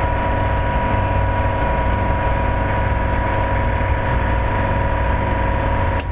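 A heavy electric shop machine running steadily, with a low rumble and a steady high whine, drawing about 26 to 41 amps on the 240-volt panel. It cuts off suddenly at the very end.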